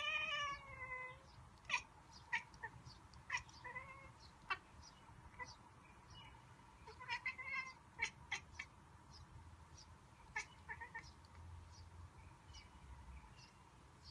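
Domestic cat chattering, the monkey-like sound it makes at birds seen through a window: a drawn-out falling call first, then a long run of short clicks and brief chirps that die away after about eleven seconds.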